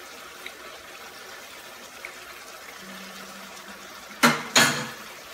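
Ground beef frying in a pan with a steady low sizzle. About four seconds in, two loud, short scrapes of a spatula in the pan as tomato paste is scraped in.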